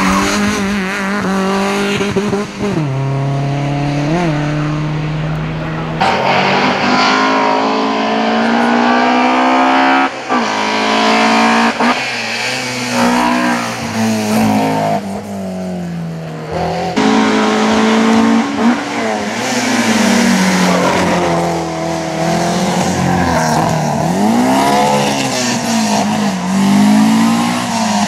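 Alfa Romeo 33 race cars' flat-four boxer engines at high revs, pitch climbing and dropping again and again as the cars shift up through the gears. Several passes are cut together, each switching suddenly to a different car.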